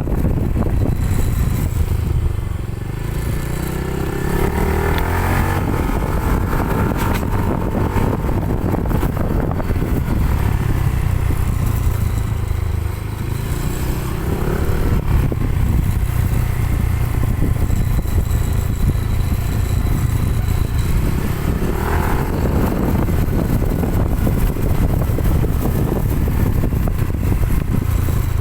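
Motorcycle exhaust note through a JVT V3 adjustable pipe set to its minimum, quietest setting, with the bike riding along the road. A steady low engine note rises in pitch a few times as the rider opens the throttle.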